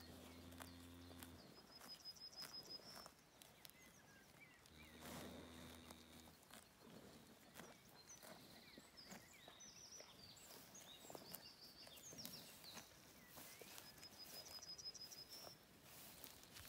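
A heifer tears and chews grass close by, a run of short crisp rips and crunches, while small birds trill and chirp in the background. Twice, near the start and about five seconds in, a low steady drone lasts a second or two.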